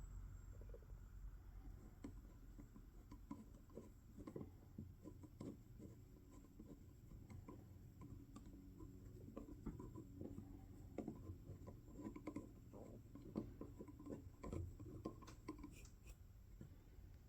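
Faint scattered clicks and scratching, like hands working with small parts or tools.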